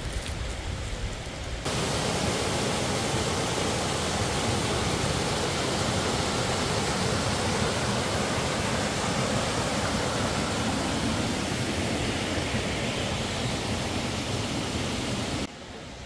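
Mountain stream rushing over rocks in small cascades: a steady, full hiss of water. It cuts in abruptly about two seconds in and cuts off just before the end.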